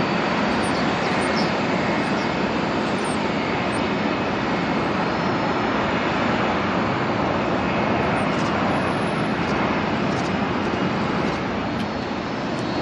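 Boeing 737 jet airliner rolling out on the runway just after touchdown, its engines making a steady rushing noise heard from across the airfield; it eases off slightly near the end.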